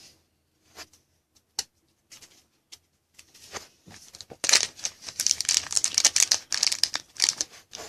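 A few soft clicks and taps, then about four seconds in a dense run of crinkling and rustling, typical of handling a foil trading-card pack wrapper.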